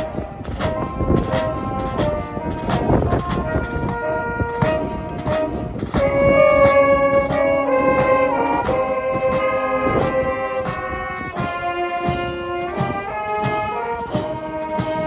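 A live brass band playing a tune outdoors. Trumpets, trombones and tubas hold melody notes over a drum kit and bass drum that keep a steady beat of about two strokes a second.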